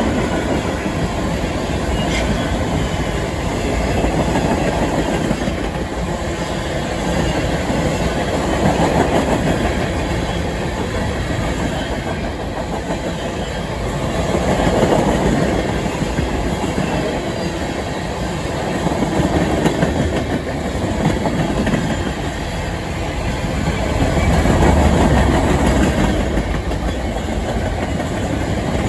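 Freight cars of a long mixed freight train rolling past, wheels clattering over the rails. The noise swells and eases every few seconds as the cars go by.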